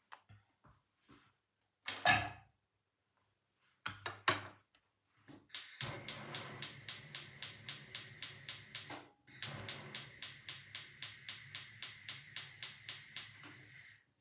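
Gas hob's spark igniter clicking rapidly and evenly, about four clicks a second, in two runs with a short break between, as a burner is being lit to melt margarine in a saucepan. A couple of knocks from handling the pan and ingredients come first.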